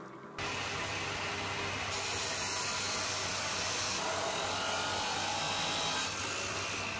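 Abrasive chop saw cutting through steel rebar: a steady, bright grinding hiss of the disc on metal over the motor's hum. It starts abruptly about half a second in.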